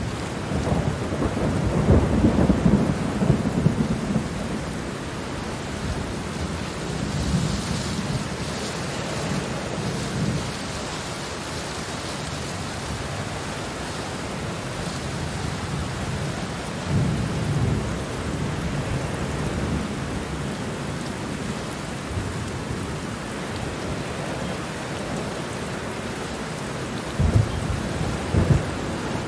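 Steady rain falling, with thunder rumbling at intervals: a long roll near the start, weaker rumbles twice in the middle, and another near the end.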